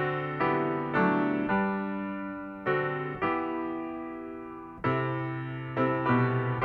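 Piano playing slow chords, each struck and left to fade before the next.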